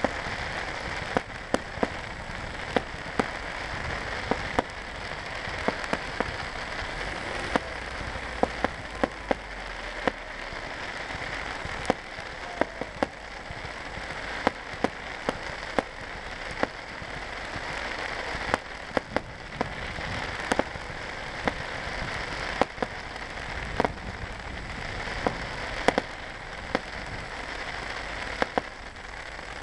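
Fireworks crackling: a dense, steady crackle like rain, with sharp bangs standing out at irregular spacing, about one a second.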